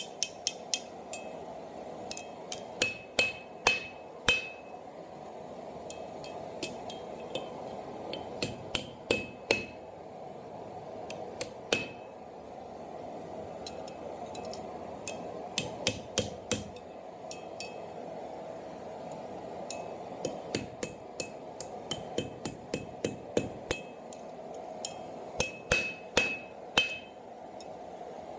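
Hand hammer striking a round steel bar on an anvil in quick clusters of blows with short pauses between, each strike leaving a brief metallic ring: forging the curled end of an S-hook.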